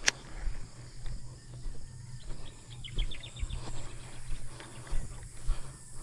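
Insects chirring steadily at a high pitch, with a sharp click at the very start and a quick run of about eight ticks a little after three seconds in.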